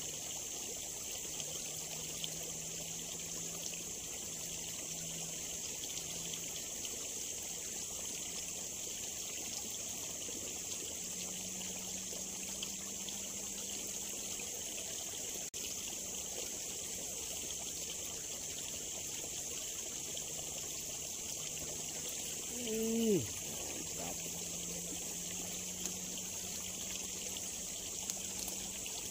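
Steady trickle of water flowing through a small, weedy ditch. About 23 seconds in, a short pitched sound slides steeply down, louder than the water.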